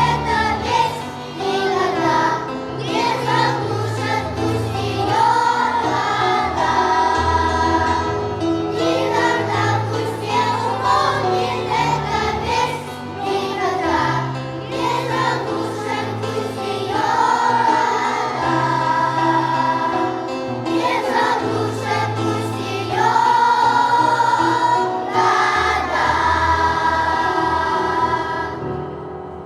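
Junior children's choir singing a Russian-language Christmas song over instrumental accompaniment with a steady bass line. The last chord fades out near the end.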